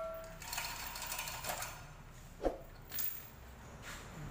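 A metal clang rings out and fades, then faint clinks and knocks of hoist chain and metal parts as an engine and automatic transmission, hanging from a chain hoist, are guided into an engine bay, with one sharper knock about halfway through.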